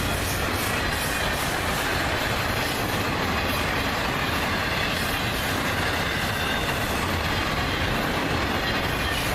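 CSX autorack freight cars rolling past at speed: a steady rumble and hiss of steel wheels on rail, with a few faint clicks over the rail joints.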